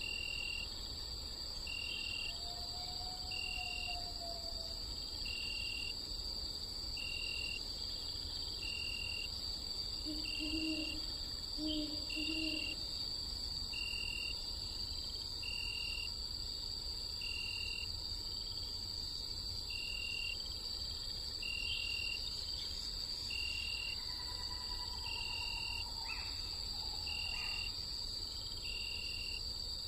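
Night forest ambience: a steady, shrill insect chorus with a short chirp repeating about every two seconds. An owl hoots twice, low, about a third of the way in, with single calls before and near the end.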